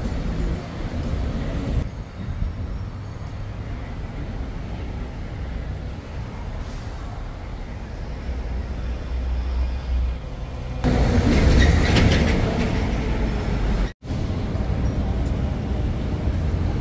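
City street traffic noise: a steady low rumble of passing vehicles that swells into a louder rush for about three seconds past the middle, then drops out for an instant before the rumble resumes.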